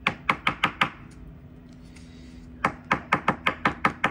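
Two quick runs of light, sharp taps, about seven a second, the second run starting about two and a half seconds in: a trading card in a plastic top loader being tapped against the desk to settle it.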